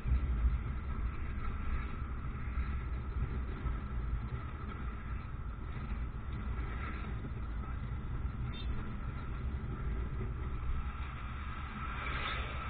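Riding noise from a moving motorcycle in town traffic: a steady low rumble of engine and road, with a brief louder swell near the end, such as a passing vehicle.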